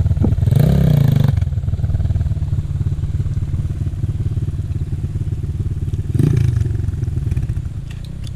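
Enduro motorcycle engine running at low, steady revs, with a brief louder surge about half a second in and another near the six-second mark.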